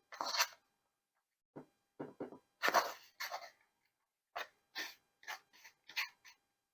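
A series of about ten short, irregular rustling and scraping noises as pieces of cooked steak are laid onto a cheese-topped lavash wrap, with brief pauses between them.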